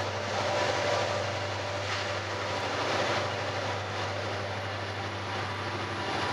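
Diesel locomotives leading a freight train on approach, their engines running with a steady low hum.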